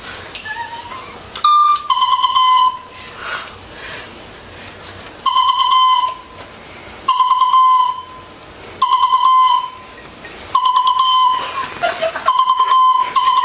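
Small trumpet played on one high, piercing note in rapid stuttering pulses, in short phrases of about a second with brief pauses between, like a techno beat; one slightly higher note sounds about a second and a half in.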